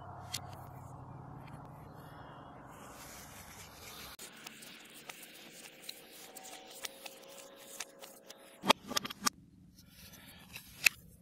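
A screwdriver and hands working on a push mower's handle bracket and metal deck: scraping and rubbing, with a quick run of sharp metal clicks about nine seconds in and one more just before the end.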